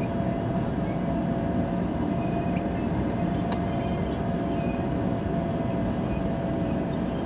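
Steady airliner cabin noise: a constant rumble of engines and airflow with a faint steady whine running through it.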